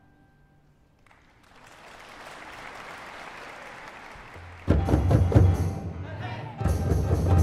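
After a brief near-silent pause, a soft rushing swell builds for a few seconds, then a large youth ensemble's drums and percussion come in loudly with dense, rapid hits, surging again about a second before the end.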